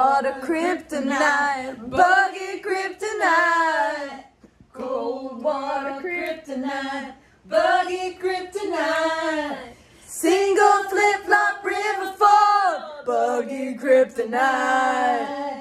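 Several voices singing a song together without accompaniment, in phrases of held notes broken by short pauses.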